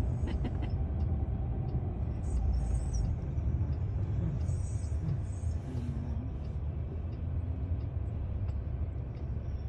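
Low, steady road and drivetrain rumble inside a Chrysler Pacifica minivan's cabin as it drives slowly.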